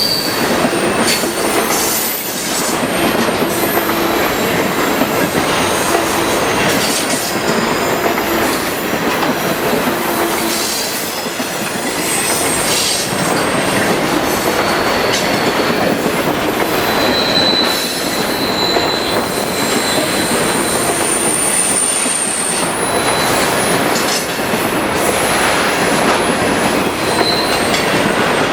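Freight cars rolling past close by, a steady rumble and clatter of steel wheels on rail with irregular clicks at rail joints. Several brief high-pitched wheel squeals come and go, the longest from about 20 to 23 seconds in.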